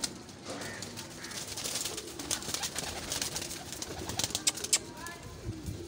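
Several domestic pigeons cooing low in a wire-mesh loft, with many quick rustles and clicks of wings and feet.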